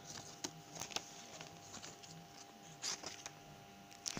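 Faint scattered taps and rustles of a paper sheet and plastic card pages being handled in a ring-binder card album, over a faint steady hum.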